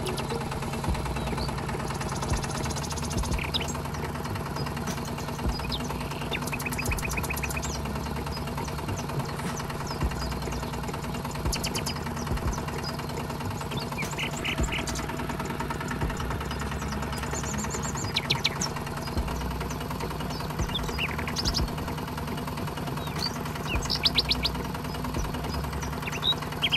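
The small motor of a DIY miniature tractor running steadily with a hum. Short high chirps come through it now and then.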